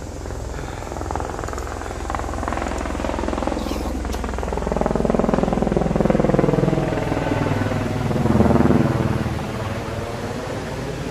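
An aircraft passing overhead: a steady low engine drone that swells in the middle and then eases off.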